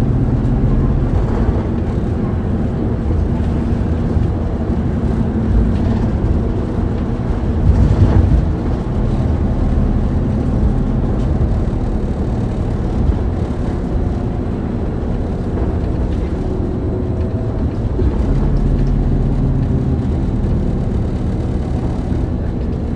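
Isuzu Erga city bus's four-cylinder diesel engine and road noise as the bus drives along, running steadily. There is a brief louder jolt about eight seconds in.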